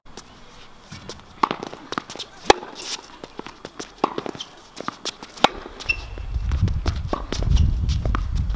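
Tennis rally on an outdoor hard court: sharp pops of the ball off the racket strings and on the court, with footsteps on the court surface. A low rumble builds from about six seconds in.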